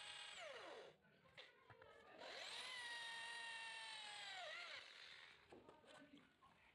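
Electric hand drill boring holes in an iron plate: the motor winds down about a second in, starts again near two seconds, runs with a steady whine, and slows to a stop about five seconds in.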